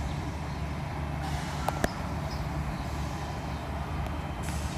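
A steady, low engine drone, like a heavy diesel running, with two sharp clicks close together a little under two seconds in.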